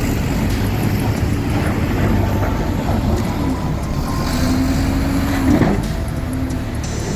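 Heavy diesel earthmoving machinery running steadily, engine noise with a wavering whine on top.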